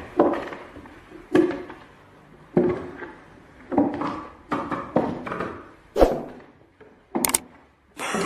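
A series of dull thuds or knocks with a short dying ring after each, about one every second and a quarter at first and then closer together, with a sharp click about six seconds in and a quick double hit near the end.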